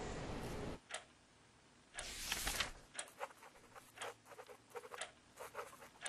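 Steady background hiss that cuts off abruptly just under a second in, then near silence broken by scattered faint clicks and ticks.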